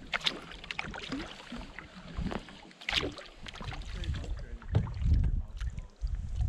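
Canoe being paddled: paddles splashing in the water, with several sharp knocks along the way.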